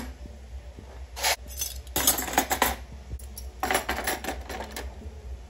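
Metal kitchen utensils and dishes clinking and knocking together in several short clusters, over a low steady hum.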